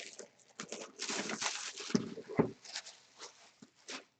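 Packaging of a sealed memorabilia box being opened by hand: rustling and crinkling with several sharp clicks and knocks, which die down to a few small clicks near the end.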